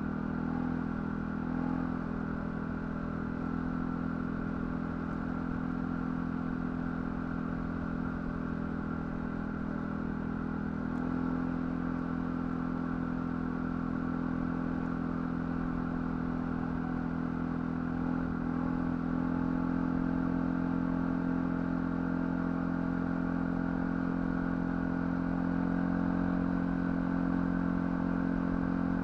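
ATV engine running steadily at low trail speed with some clatter; the engine note rises slightly about 11 seconds in and again around 19 seconds.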